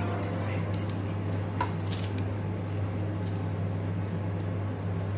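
Silicone pastry brush dabbing sticky barbecue sauce onto chicken skewers, soft wet squishing with a couple of small clicks, over a steady low hum.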